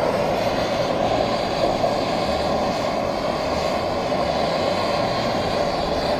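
Handheld gas torch burning with a steady rushing hiss as it heats an iron pipe fitting for soldering.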